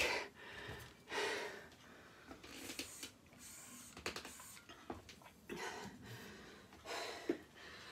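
A woman catching her breath after a kettlebell workout interval: several soft, breathy exhales spaced a second or two apart, as she drinks from a water bottle.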